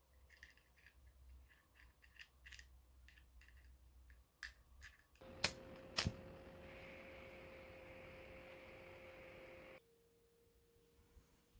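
Light clicks and taps of a small glass candle holder being handled, then two sharp clicks of a lighter being struck about five and a half and six seconds in, followed by a steady hiss of the lit flame for about four seconds that cuts off suddenly. A faint steady tone follows near the end.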